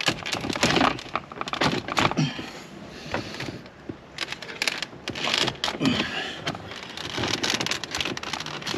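Plastic interior trim panel being pried and pulled out, its retaining clips crackling and clicking irregularly.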